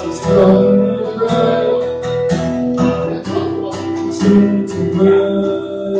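Acoustic guitar being strummed, its chords ringing on between the strokes.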